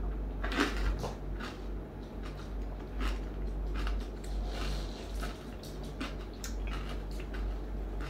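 Scattered light clicks and clinks of eating utensils against dishes and shells, irregular and unhurried, over a steady low hum.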